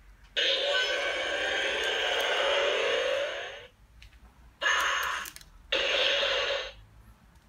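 Electronic sound effects played through the small built-in speaker of an Ultraman Cosmos Sound Flection Series figure in its story mode: a rushing noise lasting about three seconds, then two shorter bursts about a second apart.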